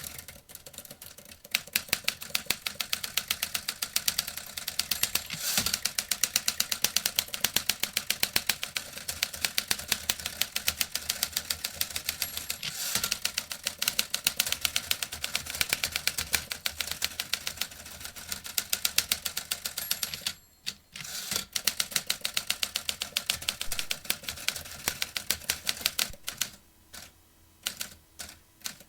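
Vintage typewriter being typed on: a fast, continuous run of key strikes, a brief pause about twenty seconds in, then slower, scattered strikes near the end.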